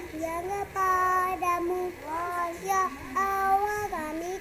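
A young girl singing alone without instruments, holding long notes that glide between pitches, with short breaks for breath.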